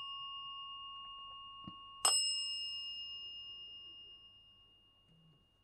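A silver desk call bell is struck once about two seconds in and rings clearly, dying away slowly over the next few seconds. At the start, the ring of two quick strikes just before is still fading, and a faint knock comes just before the new strike.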